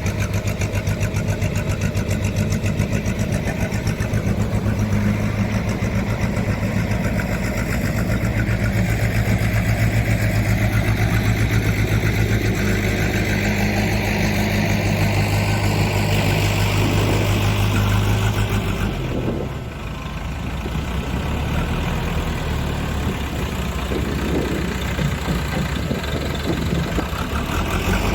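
HAMM 311 road roller's diesel engine running steadily with a strong low hum; about two-thirds of the way through the hum cuts out abruptly and the sound drops briefly, then the engine keeps running.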